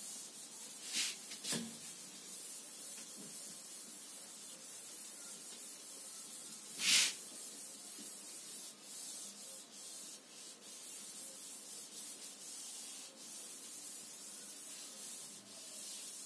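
Chalkboard duster being wiped across a green chalkboard to erase chalk writing: a soft, steady rubbing hiss, with a few louder strokes about a second in and the loudest just past the middle.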